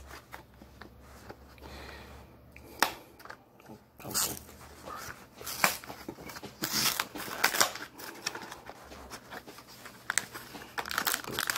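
Small cardboard box of a ready-to-eat tuna salad kit handled and opened by hand: scattered taps, scrapes and rustles of paperboard, sparse at first and more frequent from about four seconds in.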